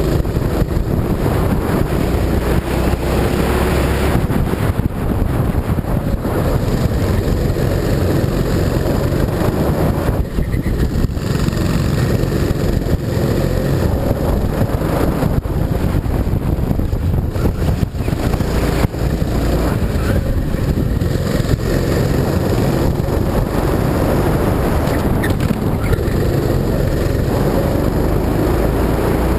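Go-kart engine running under throttle, its pitch rising and falling as the revs change, with wind buffeting the camera microphone.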